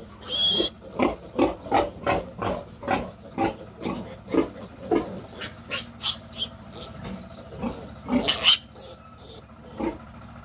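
Two-week-old piglet squealing over and over while it is held up by its hind legs and injected, in quick short squeals about two or three a second at first, then fewer, with one long, loudest squeal a little after the eighth second.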